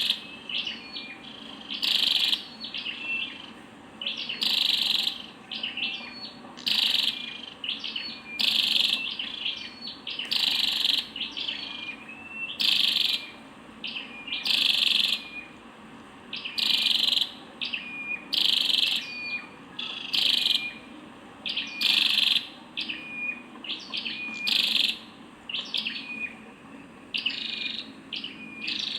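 Female flowerpecker calling: high, thin chirps in short bouts that repeat about every two seconds, with quick ticking notes between them.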